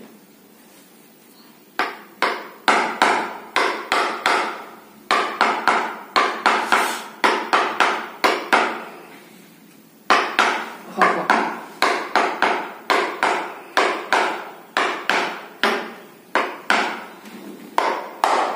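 Sharp percussive knocks struck during a chiropractic treatment, about three a second, each with a short ringing tail. They come in two long runs with a pause of about a second and a half in the middle.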